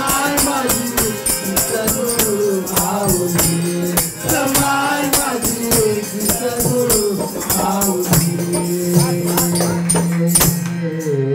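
A group sings a Marathi devotional bhajan in unison over a steady beat from a dholak barrel drum, tambourine jingles and hand-clapping. About ten seconds in, the drumming and jingles stop, leaving a held sung note.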